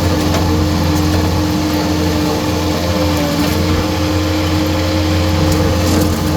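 Skid steer engine running steadily with a steady whine from its hydraulic saw attachment. A few sharp clicks come near the end.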